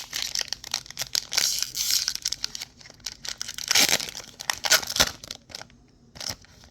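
Foil wrapper of a Pokémon TCG booster pack being crinkled and torn open by hand: dense, irregular crackling and tearing, loudest about four and five seconds in, then dying down near the end.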